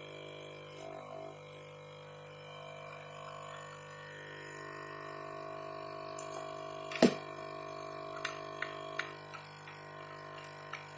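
Small parts and tools clicking against a fingerprint scanner's housing during reassembly: one sharp click about seven seconds in, then a few lighter ones. A steady droning hum runs underneath.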